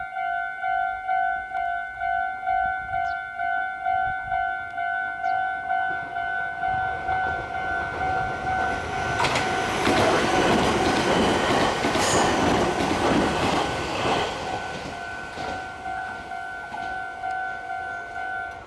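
Japanese level-crossing warning bell ringing in a steady two-tone clang, about two strokes a second, while a Meitetsu train passes through the crossing, its wheels rattling and rushing loudest from about 9 to 14 seconds in. The bell cuts off at the very end.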